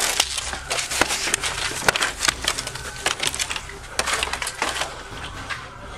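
Rapid, irregular clicks, knocks and rustling of an officer's footsteps and rattling duty gear right against a body-worn camera's microphone as he moves fast, thinning out near the end.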